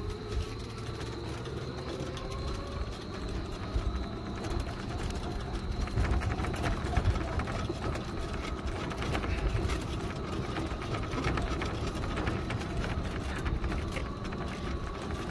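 A vehicle moving slowly along a road: a steady low rumble from the running gear and motor, with a faint whine that slowly rises in pitch over the first few seconds.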